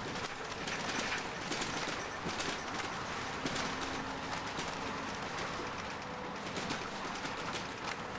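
Steady running noise of a moving road vehicle, with many irregular small clicks and rattles.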